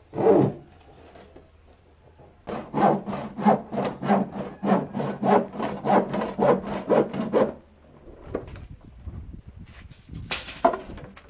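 Handsaw cutting through the wall of a plastic drum in quick back-and-forth strokes, about two or three a second, for about five seconds, then stopping; a single louder scrape follows near the end.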